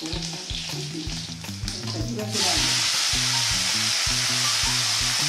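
Hot oil in an iron kadhai crackling softly, then a sudden loud, steady sizzle about two and a half seconds in as chopped leafy greens go into the oil.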